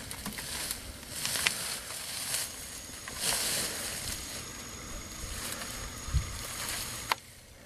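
Rustling and brushing of dry shrubs and branches as someone pushes through dense brush on foot, coming in hissy bursts with a few small cracks, a low thump just after six seconds, and a sharp click near the end.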